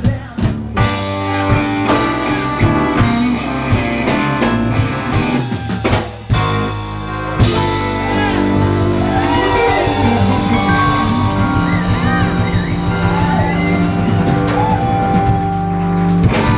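Live rock band of electric guitars, bass, drum kit and keyboard playing the ending of a song. For the first several seconds it plays stop-start accents, then a long held chord with lead-guitar notes bending over it, and the band cuts off sharply at the end.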